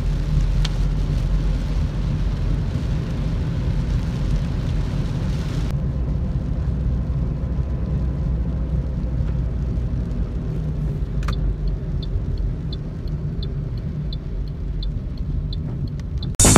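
Car interior noise while driving on a wet road in rain: a steady low rumble from the engine and tyres, with a hiss of tyre spray that cuts off suddenly about six seconds in. A click about eleven seconds in, then a light, regular ticking about three times a second.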